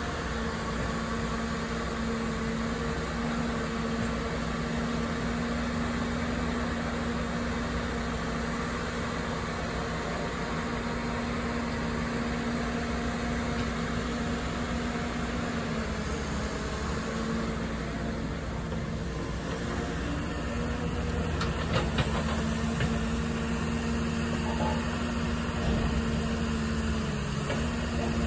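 Diesel engine of a Caterpillar 319D tracked excavator running steadily while it digs, its pitch shifting a couple of times as the hydraulics take load. A few sharp knocks come about three quarters of the way in.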